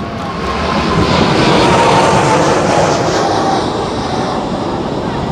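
Boeing 777-300ER's GE90-115B turbofan engines at takeoff power going past: a loud roar that swells to a peak about two seconds in and then eases, with an engine whine sliding down in pitch as it passes.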